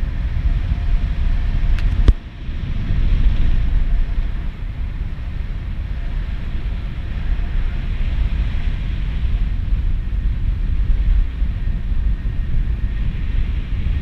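Airflow buffeting the camera's microphone in paragliding flight: a loud, steady low rumble. A sharp click about two seconds in.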